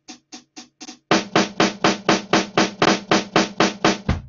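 A tiny slice of a sampled rock drum loop retriggering in Ableton's Simpler sampler, a rapid stuttering drum hit repeating about five times a second. About a second in the hits get much louder and fuller as the sample start point is moved onto another part of the loop, which sounds like a cymbal caught in a stutter.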